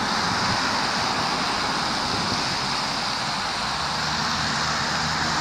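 Steady, even hiss of background noise with no distinct events, like the wash of distant road traffic.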